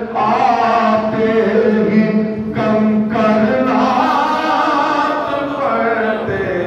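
A man chanting a naat, an Urdu devotional poem, into a microphone in long, ornamented sung lines with held, bending notes.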